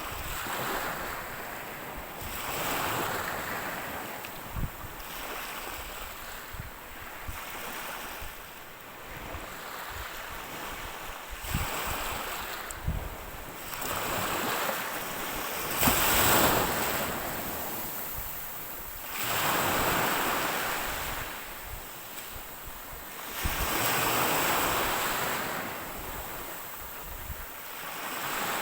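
Ocean surf: waves breaking and washing onto the shore in repeated swells every few seconds, the biggest about halfway through.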